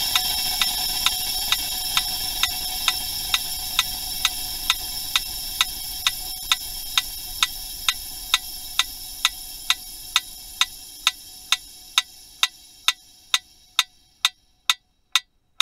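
Mechanical pendulum metronome ticking steadily, a little over two ticks a second, inside a sealed vacuum chamber. Under the ticks, a steady hiss with a faint whine fades away and is gone about fourteen seconds in.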